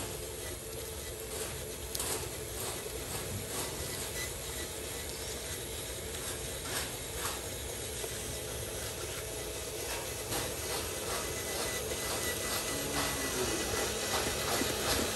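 Radio-controlled model dump truck driving over a wet dirt road: the whirr of its drive gears and tyres on grit, with many small clicks, getting louder as it approaches.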